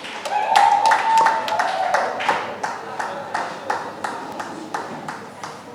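Rhythmic hand-clapping, about three claps a second, with voices singing or calling over it during the first second or so, at the close of a choir's performance.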